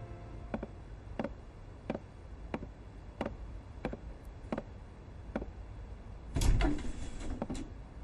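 Footsteps on a wooden floor, about one and a half steps a second, followed about six and a half seconds in by the loudest sound: a heavy wooden double door being unlatched and opened, with a knock and a short rattle.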